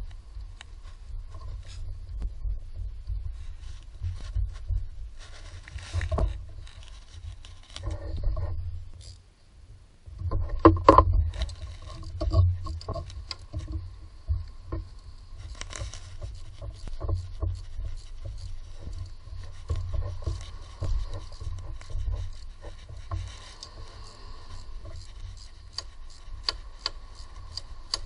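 Hands working among engine-bay parts: irregular scraping, rustling and clicking of plastic and rubber parts such as the wiring harness and hoses, over a low rumble. There is a short lull a little past a third of the way through, followed by the loudest knocks.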